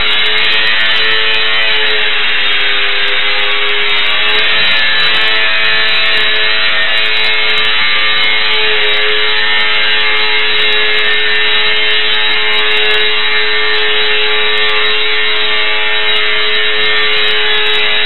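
Ultra-micro electric RC plane's motor and propeller buzzing steadily while it hangs nose-up in a hover, the pitch wavering slightly as the throttle shifts.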